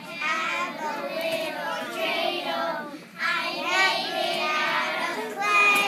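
A group of preschool children singing together, in phrases with a short break about three seconds in.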